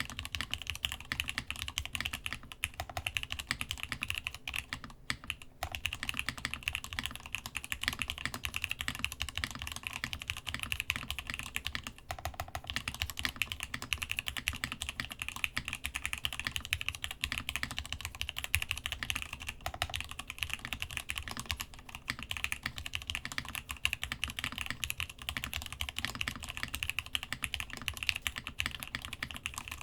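Continuous typing on a Masjewerke Muramasa mechanical keyboard with lubed, spring-swapped Gateron X switches and DCD Gondor keycaps, set on a desk mat: a dense run of key clacks with short pauses about 5 and 12 seconds in.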